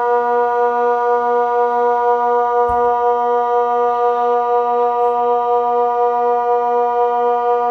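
Kockum Sonics DELTA 6 electronic siren sounding the Swiss water alarm (Wasseralarm), the warning of flooding from a dam failure: one steady low tone, one of the signal's 20-second tones, wavering slightly, with a second DELTA 6 farther off as an echo. A brief low thump about three seconds in.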